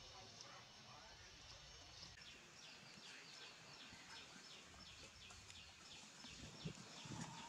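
Near-silent yard ambience with a small bird chirping over and over, about three short falling chirps a second, starting about two seconds in.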